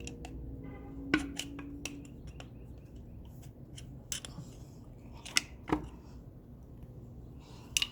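Light clicks and taps of small metal tools and parts being handled while a motorcycle shifter seal is worked into place. The sharpest click comes about a second in, with a short ring, and a few more clicks follow later.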